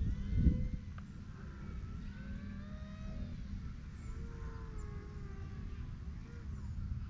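Small electric motor and propeller of a Volantex P-51D Mustang 2-channel RC plane in flight, a thin whine that slowly rises and falls in pitch as it flies about, over a low rumble, with a brief low bump near the start.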